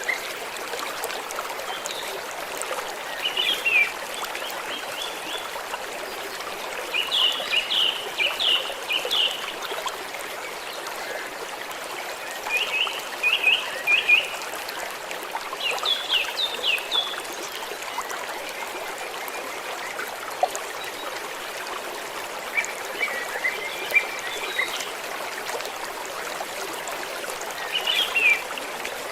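Gentle stream trickling steadily, with several short bursts of high, quick chirping calls every few seconds.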